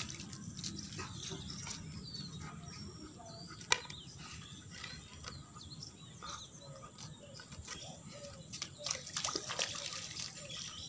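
German shepherd's paws splashing through shallow standing water, with birds chirping in the background. A single sharp click stands out about four seconds in.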